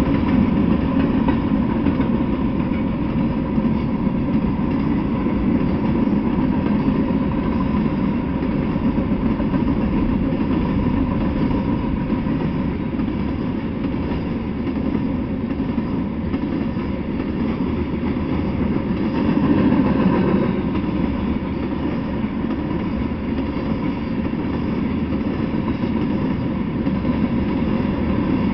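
Freight train cars, mostly covered hoppers, rolling past close by: a steady rumble of steel wheels on the rails, swelling slightly about two-thirds of the way through.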